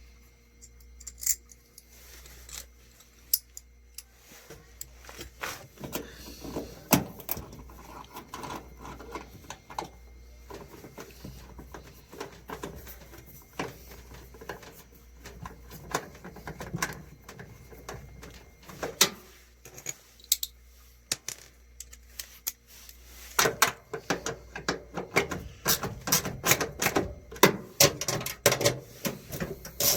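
Clicks, knocks and scraping of tools and metal parts being handled on a gas clothes dryer during repair, turning into a fast run of rasping clicks in the last few seconds.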